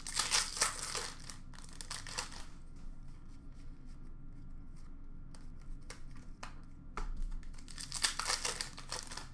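Foil card pack wrappers tearing and crinkling as packs are ripped open, once at the start and again about eight seconds in, with light taps and clicks of cards being handled in between.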